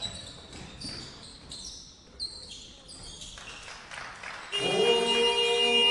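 Basketball shoes squeaking on a hardwood gym floor with a ball bouncing, then about four and a half seconds in a loud, steady game horn sounds for about a second and a half.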